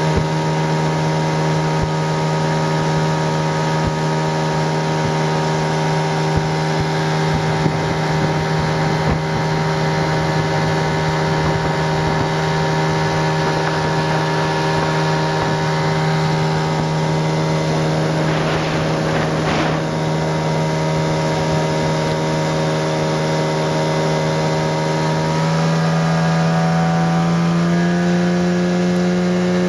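Mariner 25 hp outboard motor pushing an inflatable boat along at a steady cruise, its engine note even, then speeding up a few seconds before the end.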